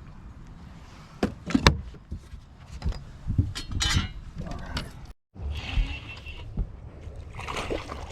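Knocks and clatter of gear being handled on a fishing boat, over a steady low rumble of wind on the microphone. The sound cuts out completely for a moment a little after five seconds in.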